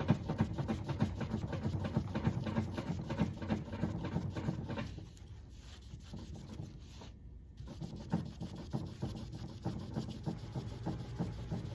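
Wet 3000-grit sandpaper rubbed by hand back and forth over a brass putter head, a quick run of scratchy strokes. The strokes ease off after about five seconds and pick up again a few seconds later.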